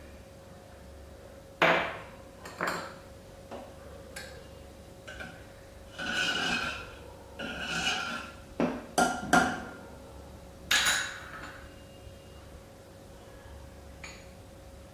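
Spoon stirring milk into cooked cracked wheat in an aluminium pressure cooker: several sharp clinks and knocks of the spoon against the pot, and two longer ringing scrapes around the middle.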